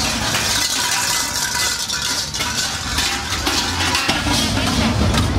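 Krampus costume bells clanking and jangling steadily as a group of masked devils moves along, with a low rumble underneath from about three seconds in.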